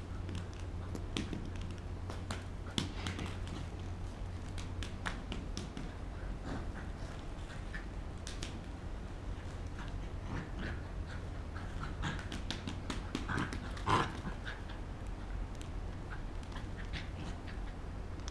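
Border collie puppy playing with a stick-and-ball toy on stone patio tiles: scattered clicks and scrapes as the toy and its claws knock and drag on the tiles, along with the puppy's own dog noises, loudest in a burst about fourteen seconds in.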